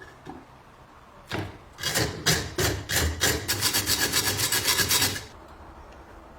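Quick back-and-forth scraping strokes worked by hand on the old bread cutter. A single stroke comes about a second in, then a run of strokes that speeds up to about five a second and stops about five seconds in.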